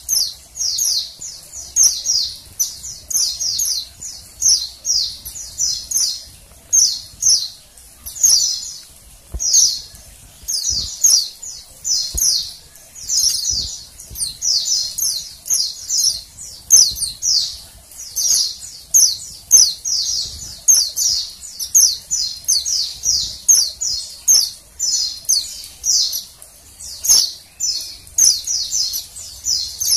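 Female white-eye (pleci) giving high, thin chirps in quick runs, about two a second, with no pause. This is the female call used to stir male white-eyes into singing.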